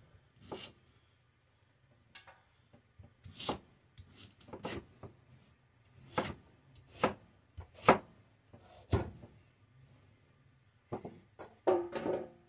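Chef's knife chopping peeled raw sweet potato into chunks on a plastic cutting board: a string of separate, sharp knocks of the blade through the potato onto the board, about a second apart and unevenly spaced.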